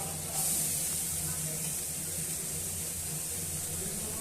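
Cashews frying in hot oil, a steady sizzling hiss that grows louder about a third of a second in, over a low steady hum.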